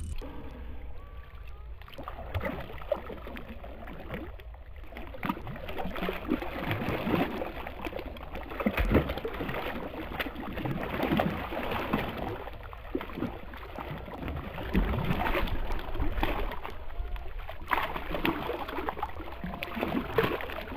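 A hooked fish thrashing and splashing at the water's surface as it is brought to a landing net, in irregular bursts of splashing that come and go.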